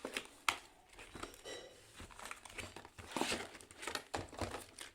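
Plastic packaging of a keycap set crinkling and rustling as it is handled and opened by hand, with a sharp click about half a second in and a denser burst of crinkling near the middle.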